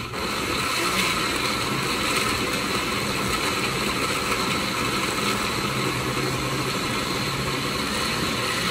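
Countertop blender running steadily at high speed, puréeing tomatoes, onion, green pepper and water into a smooth sauce.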